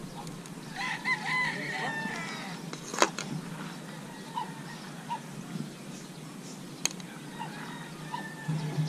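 A rooster crowing once, about a second in, for a second and a half, followed by a few short clucks; two sharp clicks come through later.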